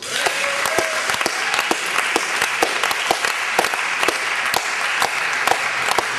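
Spectators applauding at a table tennis match, breaking out suddenly just after the rally's ball sounds stop and then holding steady, with single sharp claps standing out of the crowd's clapping.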